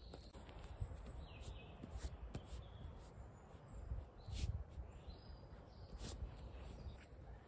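Heavy canvas sheet rustling and crinkling as it is folded and rolled up by hand on the forest floor, with a few short sharp scuffs and knocks. Gusts of wind rumble on the microphone, and a couple of faint bird chirps come through.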